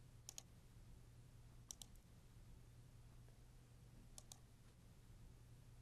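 Faint computer mouse button clicks: three quick double clicks a second or two apart, over a steady low hum.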